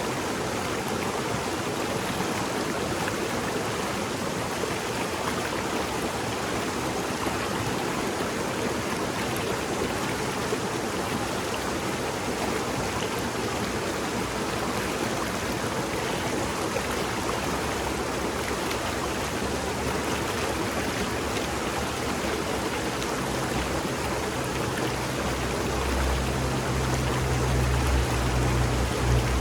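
Shallow stream babbling steadily over rocks. In the last few seconds a low, steady hum grows louder beneath the water.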